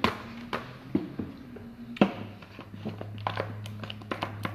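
Wooden spoon stirring and scraping thick body lotion in a plastic bowl: irregular soft clicks and squelches, over a low steady hum that grows louder about two seconds in.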